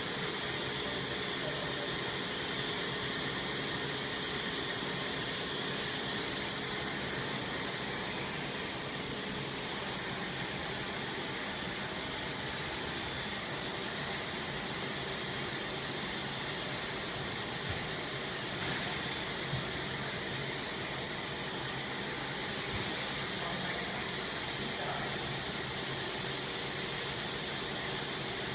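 Steady machine noise of an HDPE plastic pipe production line: a constant hum with hiss. From about two-thirds of the way in, bursts of higher hiss come and go over it.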